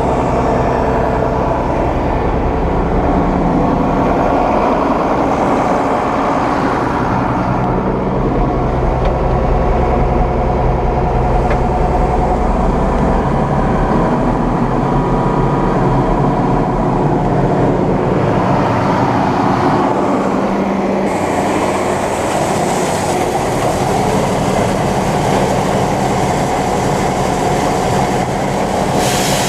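John Deere 9500 combine running while harvesting corn: a loud, steady machine drone with steady low tones that shift about halfway through, and a higher hiss that comes in about two-thirds of the way along.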